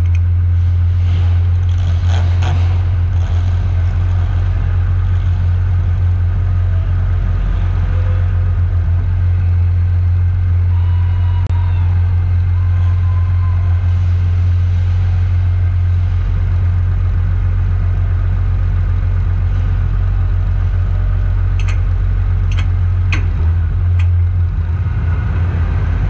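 Monster truck engine idling steadily, heard from a camera mounted on the truck itself. A few sharp clicks come near the end.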